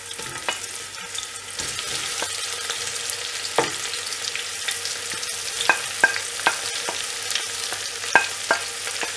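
Sliced onions sizzling in hot ghee and oil in a pressure cooker, a steady frying hiss broken by a dozen or so sharp taps and clicks as the onions are pushed in and moved about.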